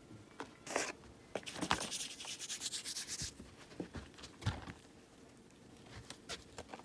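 Flour being shaken from a paper bag onto raw chicken pieces on a plate: soft rustling and rubbing, with a longer hiss a little after two seconds in and a few light taps.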